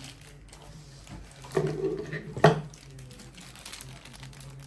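Handling noise: something is shifted or rubbed for about a second, ending in a sharp knock, over a steady low hum.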